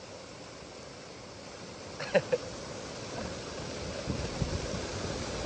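Steady rushing hiss of water pouring down from a small cliffside waterfall, with a brief vocal sound about two seconds in.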